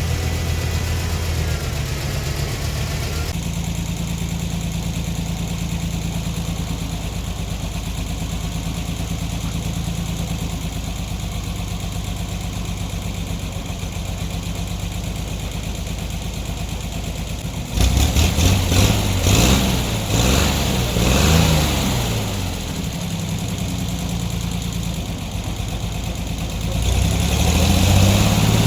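An engine running steadily, its pitch stepping a few seconds in. About two-thirds of the way through it gets louder, revving up and down with a rattling clatter, then settles and rises again near the end.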